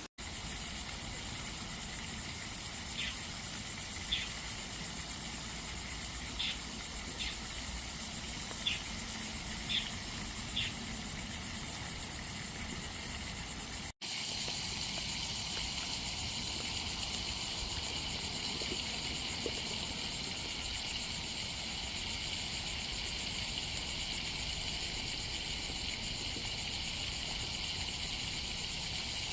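Outdoor ambience with a steady low rumble. In the first half, seven short high chirps come about a second apart. After a cut, a steady high insect buzz takes over.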